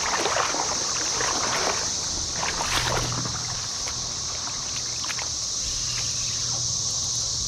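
A chorus of cicadas droning steadily in one high, even pitch, over the low rush of creek water.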